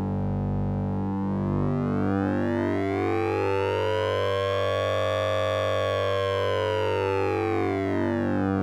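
Synthesized 'Sync'N'Ring' sound effect made with the Orange Vocoder plugin: a buzzy synth tone whose overtones sweep slowly up and then back down, siren-like, over a steady low drone.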